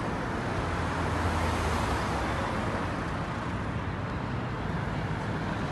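Steady city road traffic, cars and a motorbike passing on a wide street, with an engine drone swelling about a second in.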